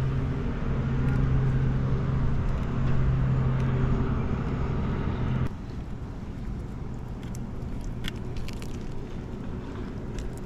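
An engine runs at a steady idle, a low even hum that cuts off abruptly about five and a half seconds in. After that there are light clicks and rattles from handling a sheepshead in a rubber landing net.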